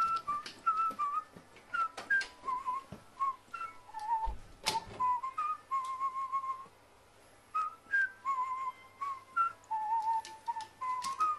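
A tune whistled in short, slightly wavering notes that step up and down, with scattered clicks and one louder knock about five seconds in.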